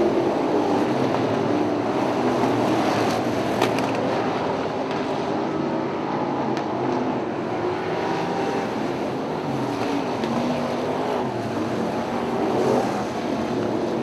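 A pack of Outlaw Street stock cars racing around a dirt oval: several engines running hard at once in a steady, loud din, their pitches shifting as cars pass. A brief sharp click about three and a half seconds in.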